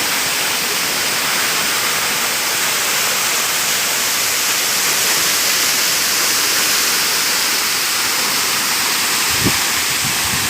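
Waterfall rushing steadily, a dense, even hiss of falling water, with a short low thump near the end.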